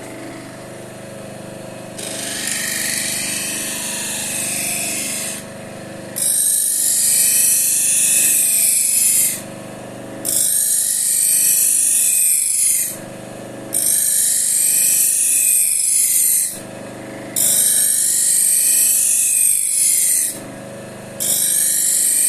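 A blade edge being honed on a spinning slotted paper wheel charged with diamond abrasive, driven by a grinder motor that runs steadily throughout. Each pass of the blade across the wheel is a loud hissing, rasping burst about three seconds long, with a short break between passes; about six passes are heard, the first one quieter.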